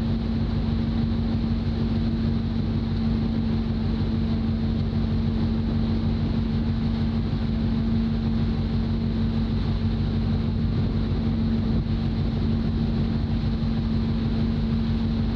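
Workboat's engines running steadily: a constant deep hum with a strong steady tone and no change in speed.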